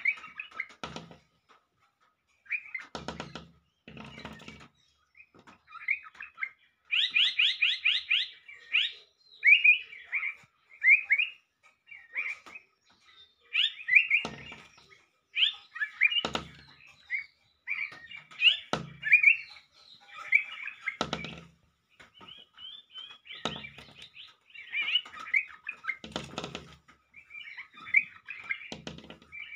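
A small bird chirping close by in short calls, with a quick run of chirps about seven seconds in. Sharp knocks come every two or three seconds between the calls.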